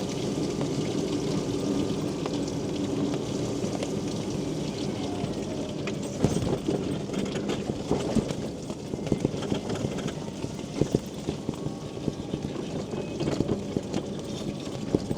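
Quingo Toura Mk2 mobility scooter's electric drive humming steadily as it rolls over wet pavement. From about six seconds in come irregular knocks and rattles as it goes over uneven paving.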